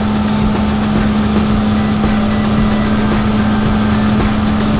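Cotton candy machine running, its spinning head giving a steady motor hum with a constant low tone under a whirring noise.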